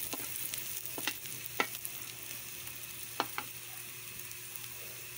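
Minced garlic sizzling softly in hot oil in a wok, stirred with a slotted stainless-steel spatula that scrapes and clicks sharply against the pan about four times.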